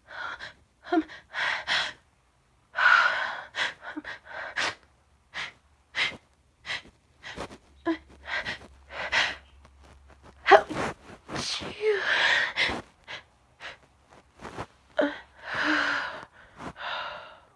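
A woman's sneezing fit, brought on by sniffed Chhinkni sneezing powder: many short, sharp gasping in-breaths and sneezes in quick succession, with a few longer breathy sneezes among them.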